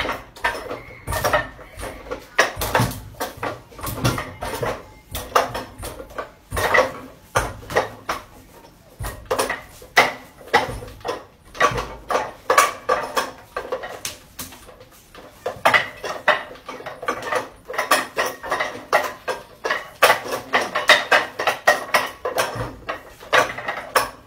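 Wooden Wing Chun dummy (mook yan jong) clacking as hands and forearms strike and slap its wooden arms: rapid, irregular knocks in flurries of several a second, with a couple of brief lulls.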